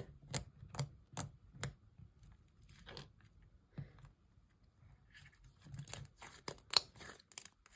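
Butter slime being pressed and stretched on a table, making short sticky clicks and pops: a quick run of them at first, a quieter stretch, then another cluster near the end.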